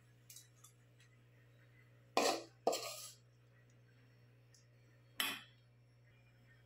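Metal spoon clinking and scraping against metal cookware: a couple of faint taps, then three loud clinks, two about half a second apart and one a few seconds later.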